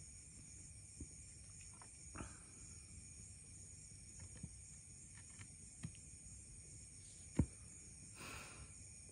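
Steady high-pitched trill of night insects such as crickets, with scattered faint clicks and light knocks from a bamboo stick and a phone being handled; one sharper knock comes about seven seconds in, followed by a brief rustle.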